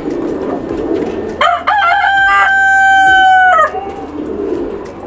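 A rooster crows once, loud, with a broken rising start and then one long held note that stops suddenly, over the low, continuous cooing of pigeons.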